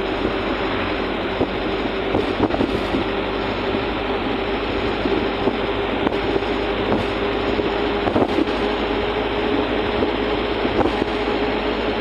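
Road vehicle driving, heard from inside the cabin: a steady engine and road noise with a steady hum, and a few sharp knocks.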